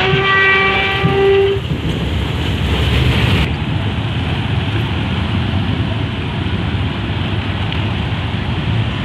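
A horn sounds once for about a second and a half, then a steady rumble of engines and crowd noise as people and vehicles come off a car ferry onto its steel landing ramp.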